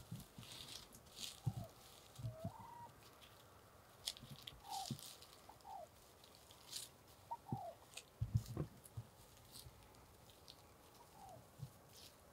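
Wild turkeys clucking softly while they feed: short, scattered, falling notes, with light ticks and rustles from the grass and a few low thumps.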